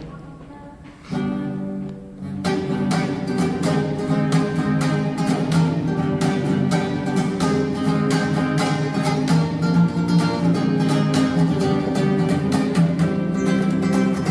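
A plucked string instrument playing on its own: a chord about a second in, then from about two and a half seconds a fast, continuous run of plucked notes.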